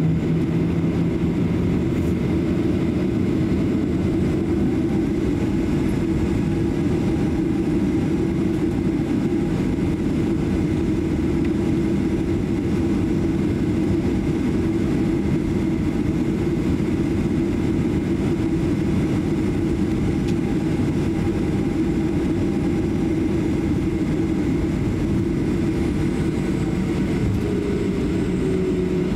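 Cabin noise inside a Boeing 737-800 taxiing: a steady hum from its CFM56-7B jet engines at taxi power over a low rumble, with the pitch of the hum dipping slightly near the end.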